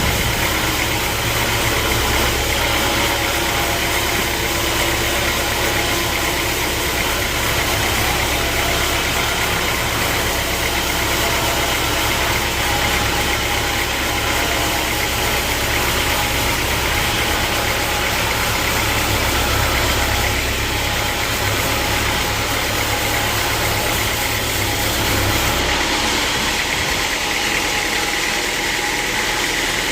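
Sawmill machinery running with a steady mechanical noise. A low hum under it stops near the end, while the higher noise carries on.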